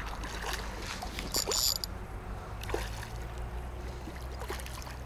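Water sloshing and swirling as a spearfisher moves in the water, with scattered small clicks and a short, bright hiss of bubbles about a second and a half in.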